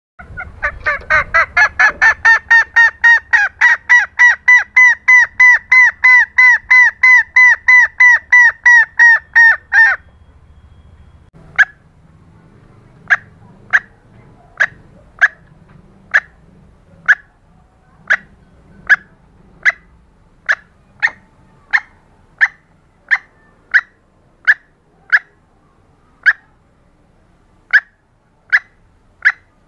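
Female green junglefowl calling: a loud, fast run of clucking calls, about four a second, stops after about ten seconds. After a short pause come single short calls about once a second. This is the hen's mating call that draws cock birds.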